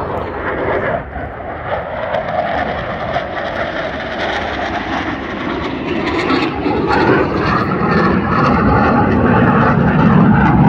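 Military jet fighter flying overhead, its engine noise a steady rush that grows gradually louder as it approaches.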